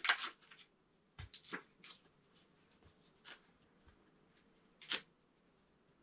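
Small plastic 3M Command Velcro picture-hanging strips being handled, giving scattered short clicks and rustles, the loudest a little before five seconds in.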